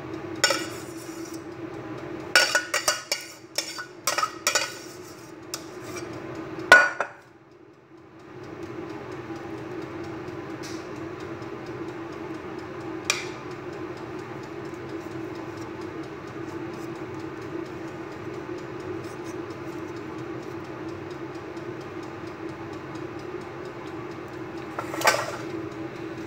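A metal spoon scraping and knocking against a metal saucepan as béchamel sauce is scraped out onto a glass baking dish: a run of clinks and scrapes over the first seven seconds, the loudest about seven seconds in. After that a steady hum dominates, with a single clink about thirteen seconds in and another near the end.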